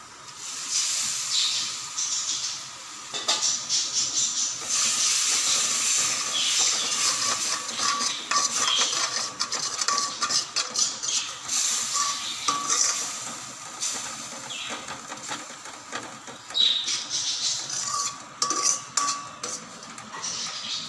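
Water poured into a hot steel kadai of fried masala sizzles with a loud hiss. A steel ladle then scrapes and clinks against the kadai as the gravy is stirred.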